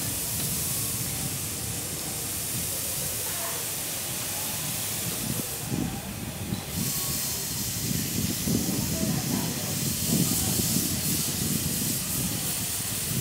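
B25 03 steam locomotive standing and hissing steam steadily, the hiss briefly dropping about six seconds in. A low, uneven noise grows louder in the second half.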